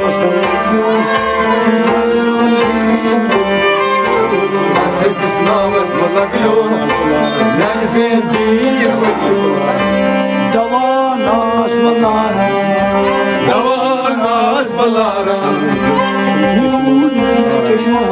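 A man singing a Kashmiri Sufi kalam over instrumental accompaniment, with long held instrumental tones under a wavering vocal line.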